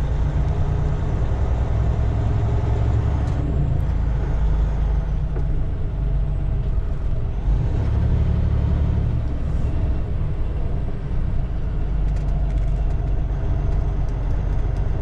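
Semi truck's diesel engine running under way, a steady low drone with a layer of engine tones that swells and eases slightly.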